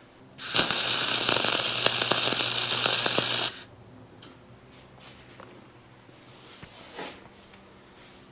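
Dual shield (gas-shielded flux-cored) wire-feed welding arc laying a tack weld: a steady crackle with a low hum under it. It starts about half a second in and stops after about three seconds.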